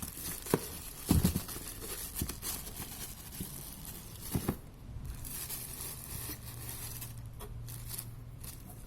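Cardboard box and plastic packaging being handled: rustling, crinkling and tearing with a few knocks, busiest in the first half and sparser later, over a faint steady low hum.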